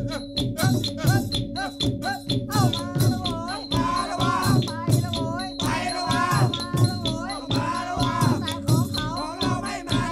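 Background music with a steady beat of rattling percussion, about three strokes a second, under a melody that bends up and down in pitch.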